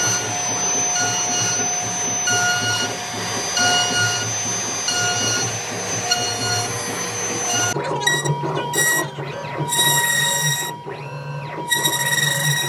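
CNC router spindle whining steadily as its bit carves a relief pattern into an MDF panel, with a rushing cutting noise underneath. About eight seconds in, the pitch of the whine changes.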